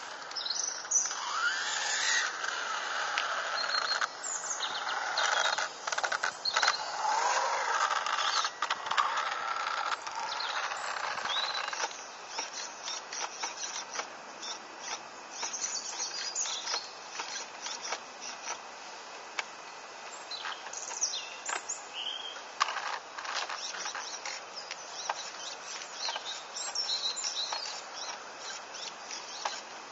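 Ultima DB RC buggy's Ezrun 8.5T brushless motor whining, its pitch rising and falling with throttle, with crackle from the tyres on asphalt, for about the first twelve seconds. After that the motor sound is gone and faint birds chirp over a quiet outdoor background.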